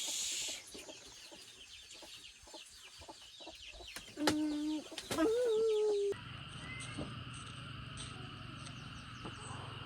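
A rooster crows once, about four seconds in: a short steady note, then a longer wavering held note. Before it there are faint bird chirps, and after the crow the sound switches abruptly to a steady low hum.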